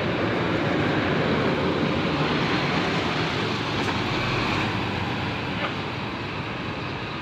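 Coach bus engine running as it pulls into a terminal bay, a steady noisy rumble that eases slightly toward the end.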